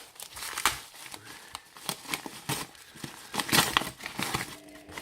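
Wrapping being handled and opened by hand, crinkling and rustling in irregular crackles, busiest about three and a half seconds in.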